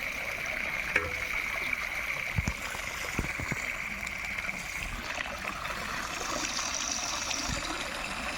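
Water running and trickling steadily, with a few low thumps about two and a half to three and a half seconds in and a steady high buzz that fades about halfway through.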